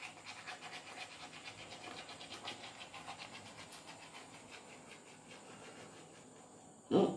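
Manual toothbrush scrubbing teeth through a foamy mouth in quick back-and-forth strokes, several a second, a scratchy brushing that slowly grows fainter. A short louder sound comes near the end.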